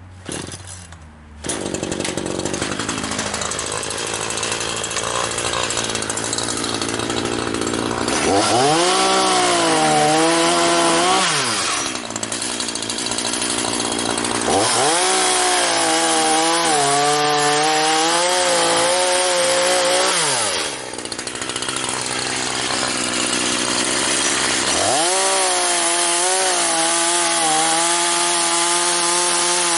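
A sawmill running through a milling pass on a log. Its engine and saw start up sharply about a second in, then run loud and continuous. Three times the pitch rises, holds with a wobble, and falls back.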